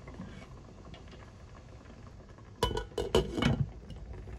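Steel-rimmed glass pot lid set onto a metal cooking pot, clinking and rattling several times in quick succession for about a second as it settles, starting about two and a half seconds in.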